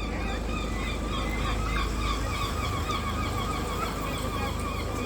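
Gull calling: a long, rapid run of short, repeated, honking notes that does not let up.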